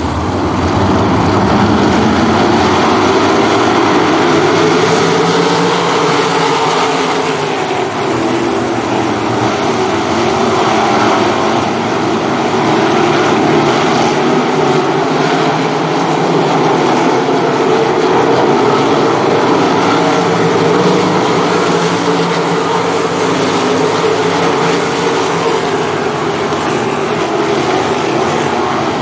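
A field of 305 sprint cars racing on a dirt oval, their 305-cubic-inch V8 engines running hard together. The overlapping engine notes keep rising and falling as the cars go round.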